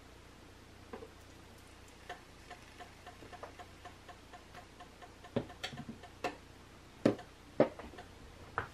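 Pan of water boiling with bagels in it: irregular pops and clicks, faint at first, with several louder clicks in the second half.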